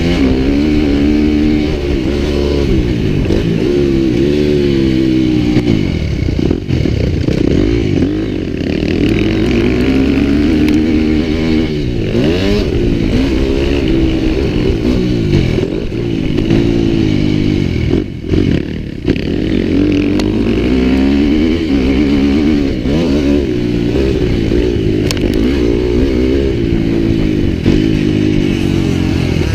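Adventure motorcycle engine running under way, its pitch climbing and dropping back again and again as the throttle is worked, with a brief drop in sound about eighteen seconds in.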